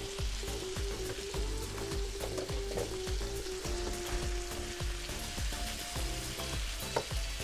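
Rice sizzling in oil in a stainless steel pot while it is stirred with a wooden spoon, with soft scraping and bumping from the spoon. Quiet background music with held notes plays underneath.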